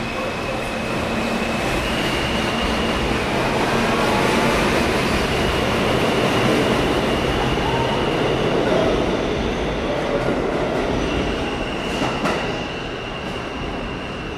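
New York City Subway R160 train pulling out of an underground station and picking up speed past the platform: a steady rumble of wheels on rail with high, drawn-out whining tones and a rising whine early on. It grows louder through the middle, gives a few sharp clacks near the end, and fades as it heads into the tunnel.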